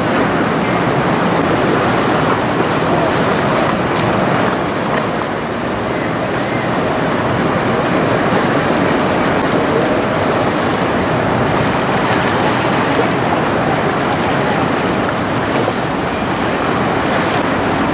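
Steady rushing of wind on the microphone and choppy waves as a heavy-lift cargo ship passes close by, a constant even noise with no distinct engine note.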